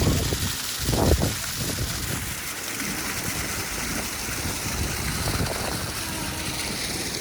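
Steady rushing wash of Pacific surf, with wind buffeting the microphone and a brief louder rush about a second in.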